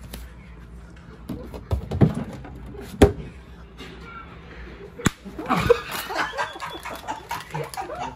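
Open hand slapping bare skin: about four sharp smacks over roughly three seconds, the loudest about three seconds in.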